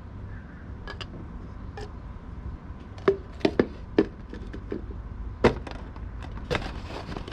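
Light knocks and taps of small objects being handled and set down on a table, a few scattered clicks with a cluster of sharper knocks in the second half.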